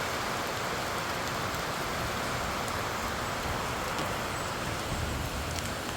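Steady rain shower falling outside, an even hiss of rain with a few faint drip ticks.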